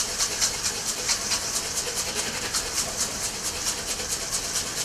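Wire whisk beating egg yolks with sugar in a stainless steel bowl: a steady rhythmic swishing and scraping, about four to five strokes a second. The yolks are being blanched, beaten pale with the sugar, for pastry cream.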